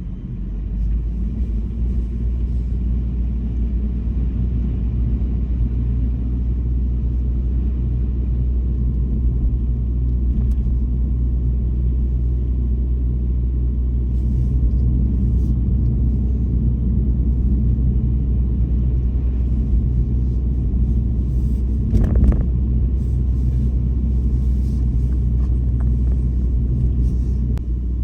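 Steady low rumble of a car driving, heard from inside the cabin: road and engine noise. A single short knock about three-quarters of the way through.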